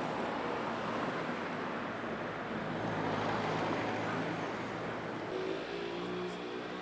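Road traffic: a motor vehicle passing in the street, its tyre and engine noise swelling about three seconds in, then easing off to a low engine hum.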